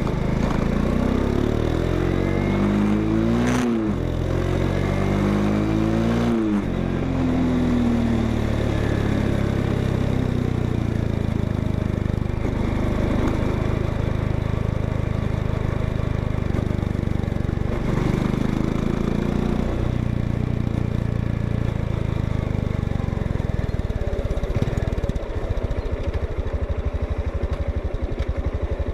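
Honda XRE 190 motorcycle's single-cylinder engine and exhaust, revved up twice in the first seven seconds, each time falling back. It then runs steadily, with another short rev about 18 seconds in, and settles to an idle with an even, slow thump near the end.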